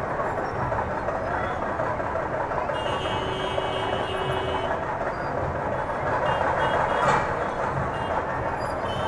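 Busy city street traffic: a steady mix of car and scooter engines, with a vehicle horn sounding for about two seconds near the middle and shorter tones later on.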